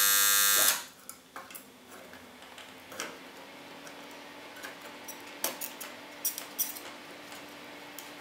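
Microwave-oven transformer of a homemade desoldering tool buzzing loudly while energised through the foot pedal, cutting off abruptly under a second in when the pedal is released. Afterwards, scattered light clicks and ticks as the circuit board and the loosened component are handled.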